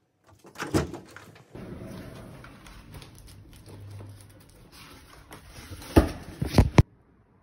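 A cardboard delivery box being handled at a doorway: a thump about a second in, rustling and scuffing, then three sharp thumps near the end before the sound cuts off.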